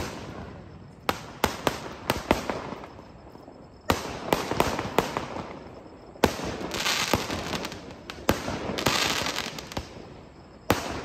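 Aerial fireworks bursting: about a dozen sharp bangs at uneven intervals, and a dense crackling follows some of the bursts in the second half.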